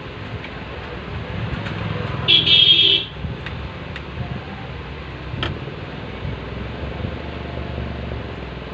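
A short, loud, high-pitched vehicle horn honk about two and a half seconds in, over a steady low background rumble, with a couple of light clicks from a stiff sheet being handled.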